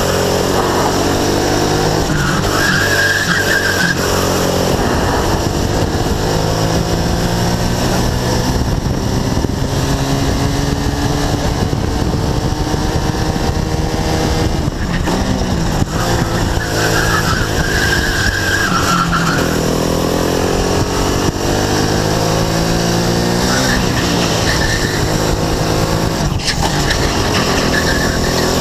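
A Sodi RX-250 kart's small engine, heard onboard, rising in pitch as it accelerates out of the corners and falling off as the driver lifts for the next turn, several times over. Twice, for a couple of seconds each, a high steady squeal sounds over it, the tyres scrubbing through a corner.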